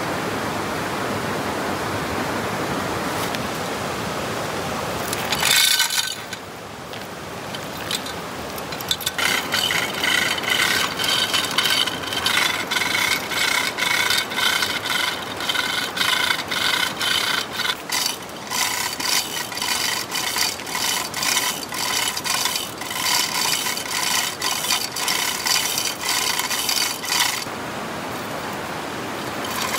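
Steady rushing noise, then, from about nine seconds in, wood being worked by hand in quick, repeated rasping strokes with a faint ringing tone. The strokes stop a couple of seconds before the end.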